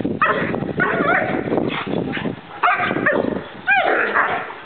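German Shepherd barking repeatedly in a run of sharp barks with short pauses, the aggressive barking of a protection dog being agitated by a decoy.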